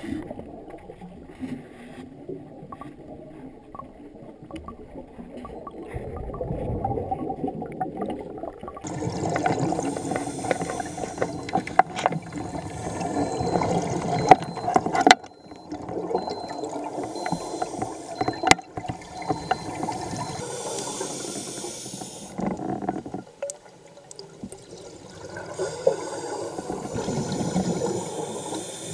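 Underwater sound of scuba divers' exhaled bubbles from their regulators, muffled through the camera housing, swelling and fading in waves every few seconds, with scattered clicks.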